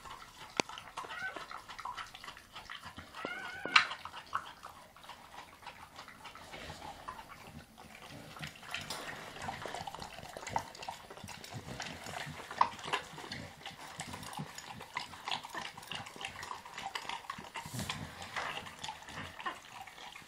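Mother dog licking her newborn puppy clean: irregular wet licking and slurping, with a brief high whine a few seconds in.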